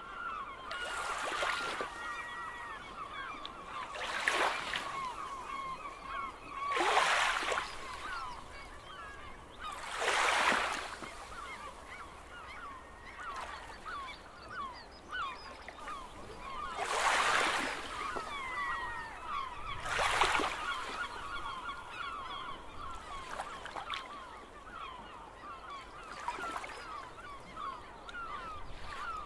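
A flock of gulls calling continually, many short overlapping cries, over sea waves washing in every few seconds in surges of surf noise.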